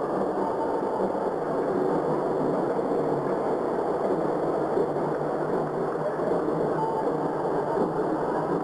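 Steady, even din of a large sports hall: a continuous noisy background with no distinct impacts standing out.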